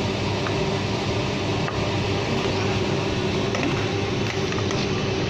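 Steady mechanical hum of a paper screen-printing machine running, with a low drone and a few faint clicks.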